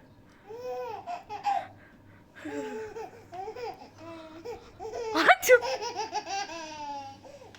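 Baby laughing in repeated short bursts; about five seconds in comes a sudden loud burst, followed by a long laugh that falls in pitch.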